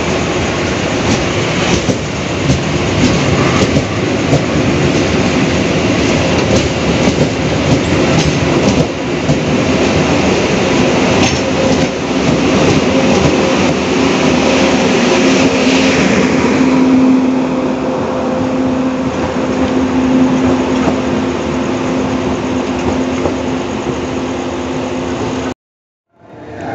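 A train, the KA Parsel Selatan parcel train, rolling past close alongside: a steady rush of wheels on rail with many sharp clacks over the rail joints. After about 16 s the noise turns duller and a steady low hum remains, until the sound cuts off abruptly near the end.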